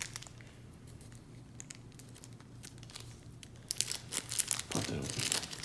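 Small clear plastic wrapper crinkling as fingers work it open, a scatter of crackles that gets busier and louder toward the end.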